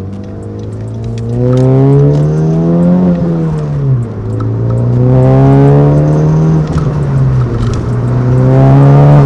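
Honda Civic Type R (FK8) turbocharged 2.0-litre four-cylinder accelerating through the gears. The engine pitch climbs, falls at an upshift about three to four seconds in, climbs again, falls at a second upshift around seven and a half seconds in, and climbs once more near the end.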